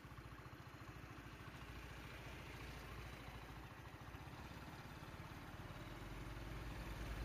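A vehicle engine idling steadily with a fast, even pulse, growing louder near the end as a jeep comes up close alongside.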